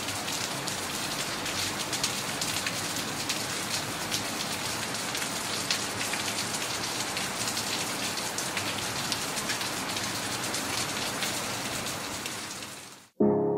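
Steady rain falling, a dense even hiss flecked with many small drop ticks; it cuts off abruptly near the end.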